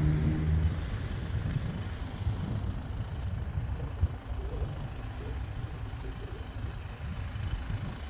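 A motor vehicle's engine hum fading out within the first second, leaving an uneven low rumble.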